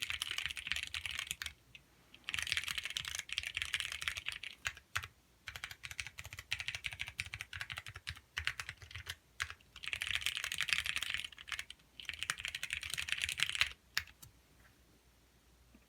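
Typing on a custom ergonomic keyboard: runs of rapid keystrokes broken by short pauses, stopping a couple of seconds before the end.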